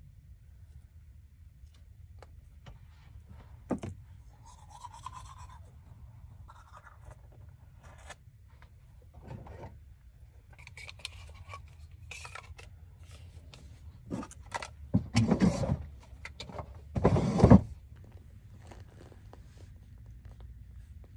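Someone handling things in a van: scattered light clicks and knocks and some rustling, then two louder rubbing, scraping noises near the end, over a faint low hum.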